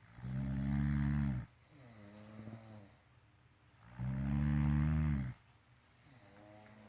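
A sleeping person snoring: two loud snores about three seconds apart, each lasting over a second, with softer snoring sounds between them.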